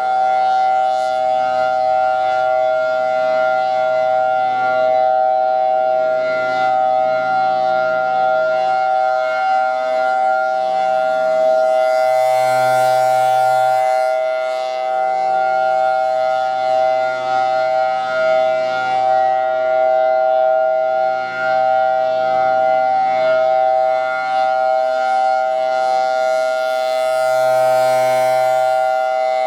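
Federal Signal Thunderbolt 1003 rotating warning siren sounding a steady tone on a monthly test. Its pitch holds level while the sound swells louder and brighter twice, about 15 seconds apart, as the turning head points toward the listener.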